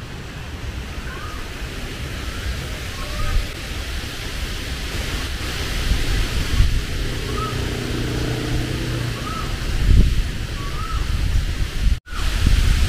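Outdoor ambience with wind rumbling on the microphone and a bird repeating a short rising call every second or two. A steady hum joins it for about two seconds in the middle.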